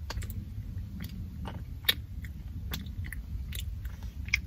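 Close-up chewing of a Lunchables pizza snack: about ten irregular crisp crunches, the loudest about two seconds in, over a low steady rumble.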